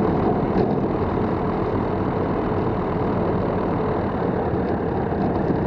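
The SAM Aircraft's 100-horsepower Rotax 912 engine and propeller running steadily at taxi power, heard from outside the cockpit.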